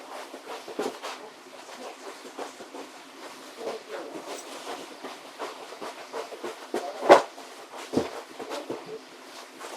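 Scattered light knocks and clatter of household objects being handled, with a sharper knock about seven seconds in and another about a second later.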